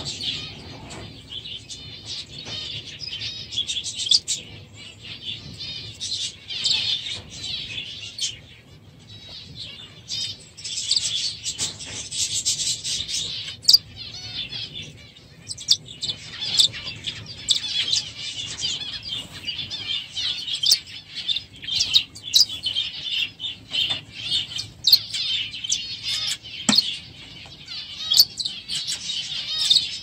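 A flock of small aviary birds chirping together in a dense, continuous chatter, with brief lulls about nine and fifteen seconds in and scattered sharp clicks.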